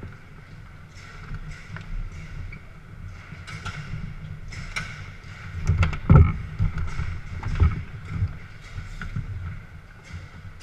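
Garlando foosball table in play: the ball and the players' figures clacking and knocking, with rods sliding and banging against the table. The loudest, heaviest knocks come about six seconds in and again a moment later.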